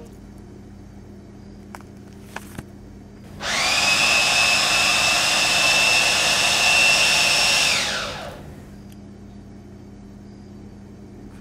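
Electric kitchen blender running for about four and a half seconds: a loud whirring with a steady high whine that rises as the motor spins up and sinks as it winds down. A few light clicks come before it starts.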